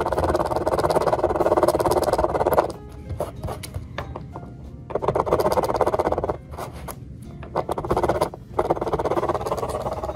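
Hand file rasping in quick short strokes over the rivet heads on an aircraft door frame, in three spells with short pauses between. The rivets are being filed down so they don't stick out and scratch the door frame.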